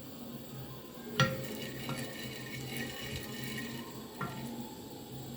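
A metal cooking pan clinks twice, once about a second in and again near four seconds. The first clink rings on for a couple of seconds. A steady low hum runs underneath.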